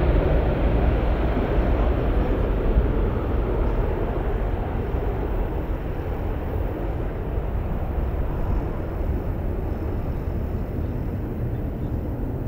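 Boeing E-3A Sentry's four TF33 turbofan engines at takeoff power, a loud, steady jet rumble that slowly fades as the aircraft rolls away down the runway toward lift-off.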